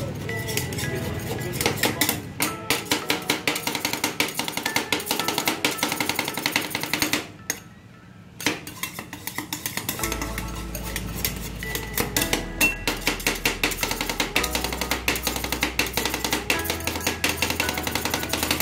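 Metal spatulas tapping and scraping on a frozen steel plate in quick, sharp clicks, chopping an ice cream mixture into Thai rolled ice cream. A pop song with a beat plays over it, and its bass comes in about halfway.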